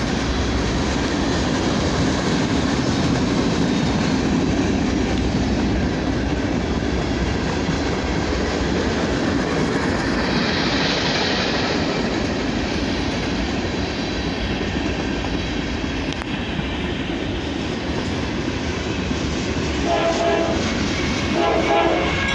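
Norfolk Southern freight train rolling past, a steady rumble of wheels on the rails with a rising hiss of wheel noise about halfway through. Near the end, two short horn sounds.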